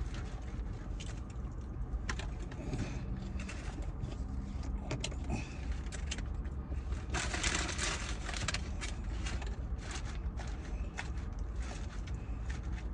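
Eating sounds from a tuna sandwich and salad: chewing and mouth noises with many small clicks and crinkles from a clear plastic salad container, and a louder crinkling rustle about seven seconds in. A steady low rumble of the car cabin runs underneath.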